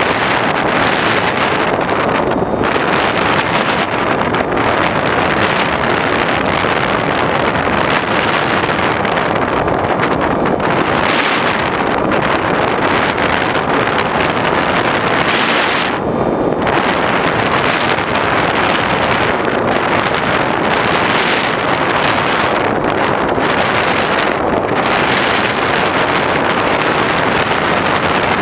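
Steady rush of wind and propeller noise picked up by a GoPro riding on an X8 FPV aircraft in flight, with the hiss briefly dipping every few seconds.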